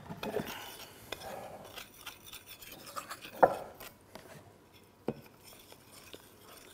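Spoon stirring a runny semolina batter in a glass bowl, scraping and sloshing. There are two sharp clinks of the spoon on the bowl, about three and a half and five seconds in.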